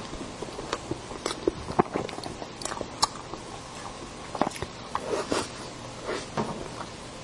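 Close-miked eating: a metal spoon cutting into a glossy red apple-shaped cake, then a spoonful bitten off and chewed, heard as scattered short clicks and soft wet smacks.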